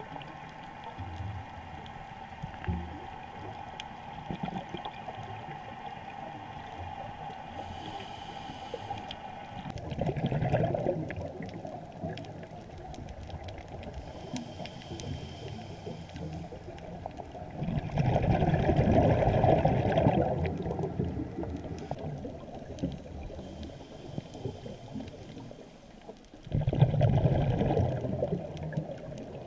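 Muffled underwater noise picked up by a camera below the surface: a steady wash of water sound with three louder rushing surges, each two to three seconds long, about ten, eighteen and twenty-seven seconds in.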